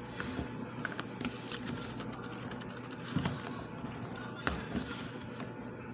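Light clicks and taps of plastic food tubs being handled and opened, with a couple of sharper taps near the middle, over a steady low hum.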